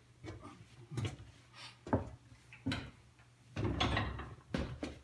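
A person climbing out of a pickup truck bed: a handful of knocks and scuffs of boots and body against the bed about a second apart, with a longer scuffing stretch near four seconds in.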